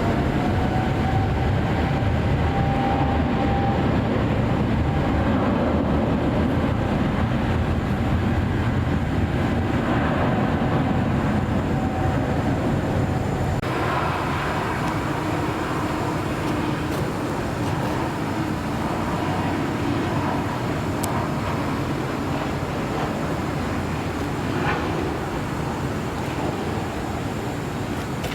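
Jet airliner engine noise: a steady rumble with a whine that rises just at the start and then holds, the whole sound slowly fading.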